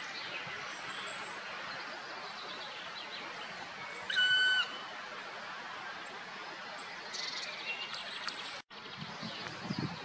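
Black woodpecker giving one long whistled call about four seconds in, its pitch dropping at the end. It sounds over a steady hiss with faint chirps of other birds, and the sound cuts out for a moment near the end.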